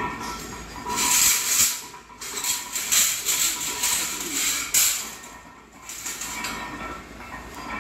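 Workshop metalworking machinery: several loud, harsh rasping bursts between about one and five seconds in, then quieter running noise with a faint steady hum.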